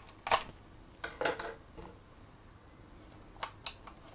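Small hard-plastic clicks and taps as hands handle a toy drone's folding arm and snap-on propeller guard: one click about a third of a second in, a short run of clicks and rustling around a second in, and two sharp clicks near the end.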